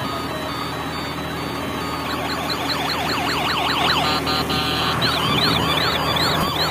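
Electronic toy sound chip playing through a small speaker: a tinny beeping tune in the first half-second, then a fast wailing siren effect, about three sweeps a second, from about two seconds in, over a steady low hum.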